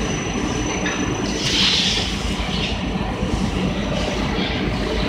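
Steady mechanical din of machinery on a shoe-factory assembly line, with a brief higher hiss about one and a half seconds in.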